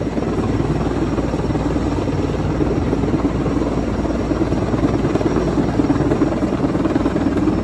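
Heavy-lift crane helicopter hovering low overhead with a slung load, its main rotor beating in a steady, rapid chop.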